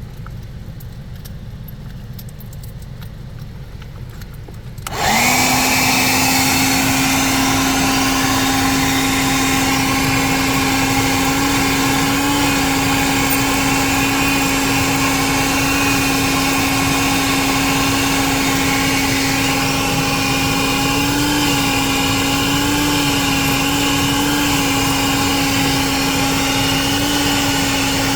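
Low rumble, then about five seconds in a 1980s Bon Aire 1-gallon wet/dry car vacuum switches on: its motor spins up with a quick rise in pitch and then runs with a steady hum, the pitch wavering slightly now and then.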